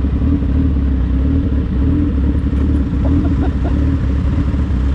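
Motorcycle engine running steadily while riding, a dense, even low rumble with no clear revving up or down.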